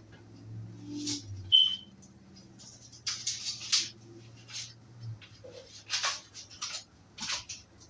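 Seasoning being shaken from a spice shaker onto fish in a string of short rustling shakes, with a brief high squeak about a second and a half in. A low hum underneath stops about five seconds in.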